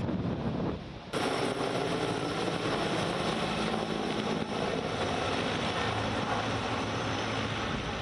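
Helicopter noise from rotor and engine: a loud, steady drone that cuts in abruptly about a second in.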